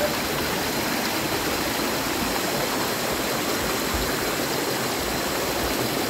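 Steady rush of flowing water, an even noise without breaks.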